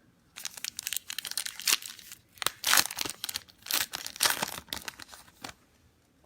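Trading-card pack wrapper crinkling and tearing as it is handled and opened: a dense run of sharp crackles for about five seconds that stops abruptly.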